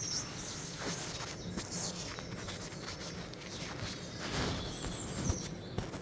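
Bird-video soundtrack played through a TV: outdoor ambience with scattered small-bird chirps. A couple of soft knocks near the end.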